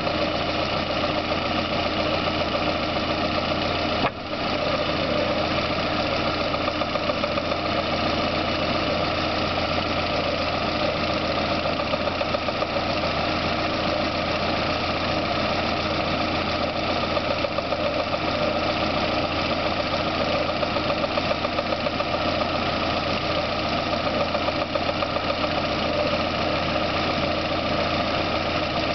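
Car engine idling at operating temperature with a rapid, even knock that comes on only after warm-up. About four seconds in there is one brief sharp click and a momentary dip in level.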